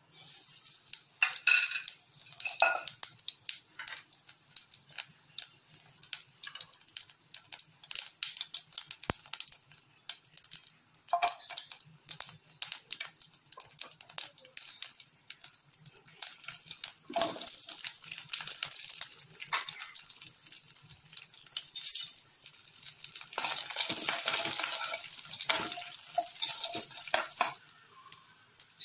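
Cumin seeds, garlic and shallots frying in oil in a stainless steel pan: a crackling sizzle with spoon clinks and scrapes against the pan. The sizzle becomes denser and louder near the end.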